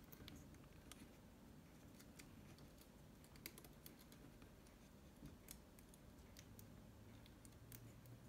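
Near silence broken by faint, irregular light clicks and ticks of hands working small plastic laptop parts.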